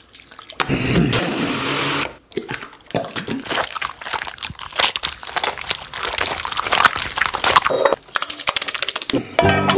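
Hands squishing and kneading a wet crumb mixture on a countertop: a dense, irregular run of wet squelches and crackles. About a second in, dry crumbs pour into a plastic bottle with a brief rustle.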